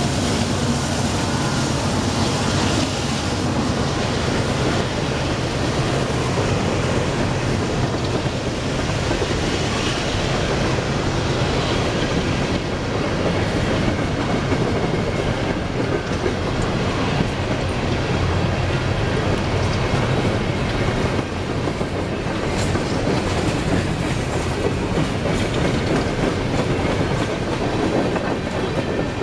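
A train of empty CSX coal hopper cars rolling past, with a steady rumble of steel wheels on the rails.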